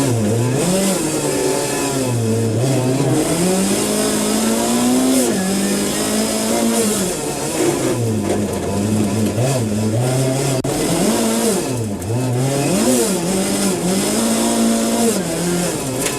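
Rally car engine driven hard, its revs climbing and dropping over and over as it works through the gears and lifts off.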